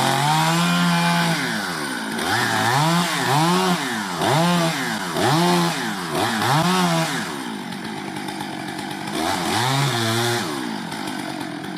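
Two-stroke chainsaw cutting the felling wedge into the front of a tree, its engine revving up and dropping again about once a second. It runs lower for the last few seconds, with one more rev near the end.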